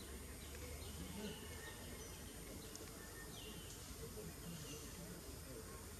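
Faint outdoor forest ambience: a steady background hiss with a few short, high-pitched chirps scattered through it.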